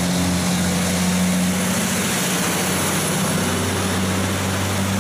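Cab-over semi-truck pulling a shipping container drives past on a wet road: a steady engine drone under the hiss of tyres on wet pavement.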